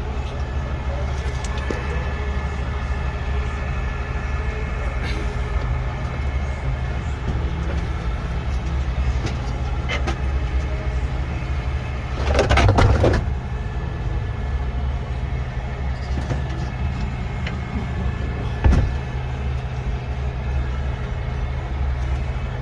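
Heavy diesel truck engine idling steadily with a deep, constant drone, a louder rushing passage about halfway through and a few sharp clicks.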